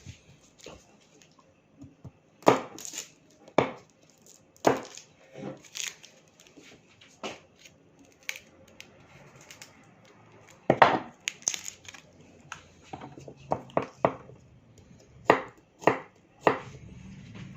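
Knife cutting garlic on a cutting board: irregular sharp knocks with pauses between, some coming in quick clusters.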